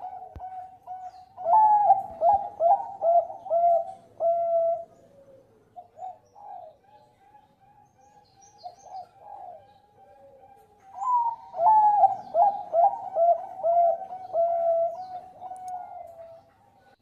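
Bangkok-type zebra dove (perkutut) singing its cooing song: two loud bouts of quick, rolling coo notes, the first starting about a second in and the second about eleven seconds in, with quieter, scattered coos between them.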